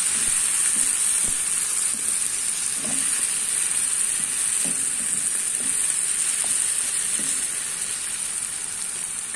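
Chopped green beans with onion and tomato sizzling steadily in oil in a frying pan, with a wooden spatula stirring and scraping through them.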